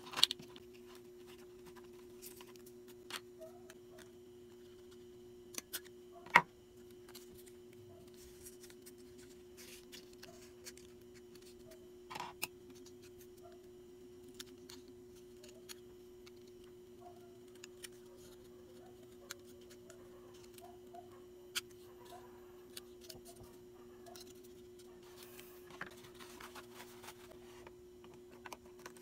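Small items and packaging being handled by hand: scattered light taps, clicks and rustles, the sharpest knock about six seconds in, over a steady low hum.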